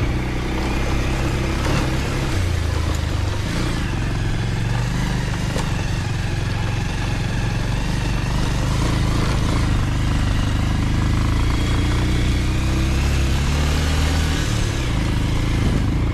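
Motorcycle engine running, heard from the rider's seat while riding a rough gravel track; the engine note rises and falls as the throttle changes, over steady wind and tyre noise.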